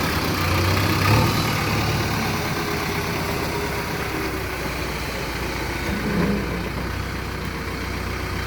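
JCB 3DX backhoe loader's diesel engine running steadily at low revs, with brief swells about a second in and again about six seconds in.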